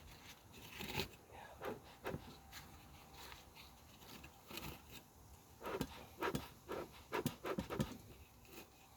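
A bee smoker's bellows pumped in short, breathy puffs, a few spaced out at first, then a quicker run in the second half. The puffs fan the freshly lit paper fuel to get the smoker going.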